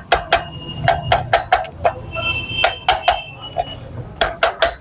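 Irregular sharp metal clicks and knocks, about three a second, with a faint ringing in the middle, as the upper crankcase half of a Hero HF Deluxe engine is worked down onto the lower case and crankshaft.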